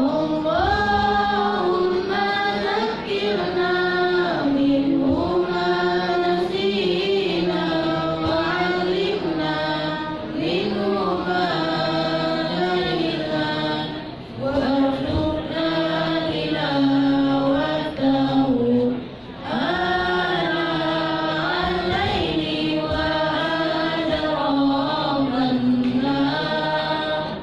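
Young students' voices chanting the Arabic prayer recited after reading the Qur'an, through microphones, in long melodic phrases with brief pauses for breath.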